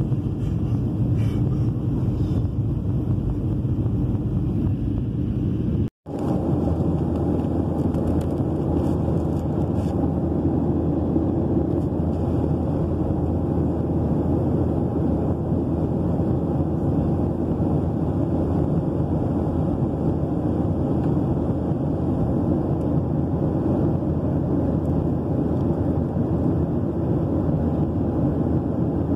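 Steady drone of an airliner cabin in flight: jet engines and rushing air, heaviest in the low range. It cuts out for an instant about six seconds in, then carries on unchanged.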